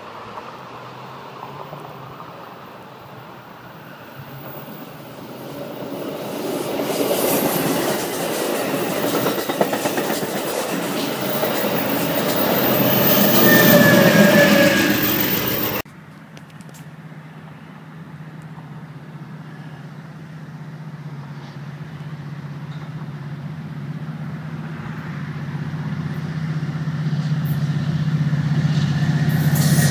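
Amtrak passenger train with a GE P42 diesel locomotive approaching and passing, growing louder to a peak with brief wheel squeals. Then, after a sudden cut, a Metrolink EMD F59PH diesel locomotive approaching, its engine drone rising steadily.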